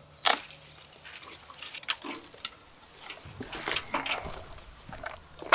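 Pruning loppers cutting through a flat peach tree branch with one sharp snap, then scattered smaller clicks and rustling of twigs, and another sharp snap at the very end.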